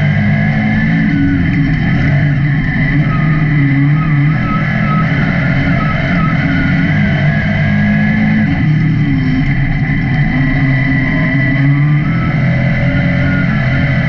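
Dirt late model race car engines running at speed, the engine note rising and falling again and again as the cars lap.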